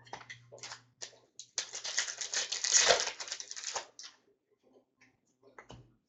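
Trading cards being flipped and shuffled through the hands, a crisp card-on-card clicking and sliding. A dense run of quick clicks comes about a second and a half in and lasts about two seconds, with scattered single clicks before and after it.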